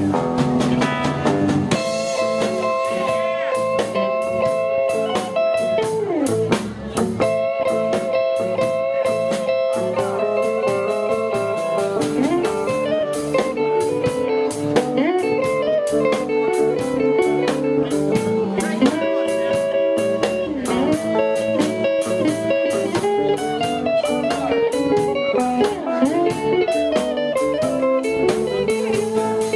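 Live electric blues band playing an instrumental passage: electric guitars, bass guitar and drum kit, with a lead line of sustained notes that bend up and down.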